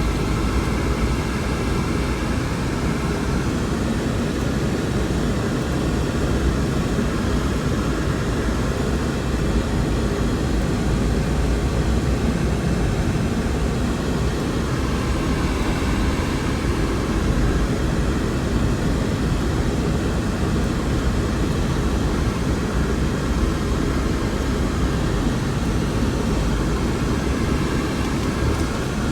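Typhoon wind blowing hard: a loud, steady rushing roar with a deep rumble underneath.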